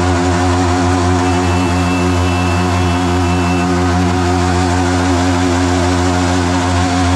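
Sport motorcycles' single-cylinder engines held at high revs during a burnout, spinning the rear tyre on dirt. The note is loud and holds an almost constant pitch with a slight waver.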